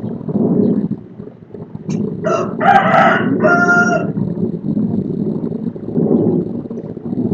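A rooster crowing once, about two seconds in: a crow of several short parts ending in a held note, lasting about two seconds. Steady low background rumble underneath.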